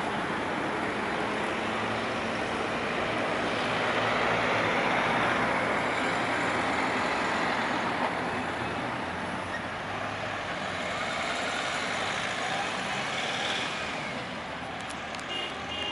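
Road traffic: cars driving past on a street, with the tyre and engine noise swelling as vehicles pass close about four to six seconds in. A few short, evenly repeated beeps sound near the end.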